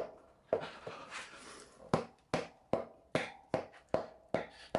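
Sharp knocks on a motorcycle wheel and tyre as the tyre is forced off the rim by hand: one about half a second in, a rubbing noise, then a quick run of knocks about two to three a second.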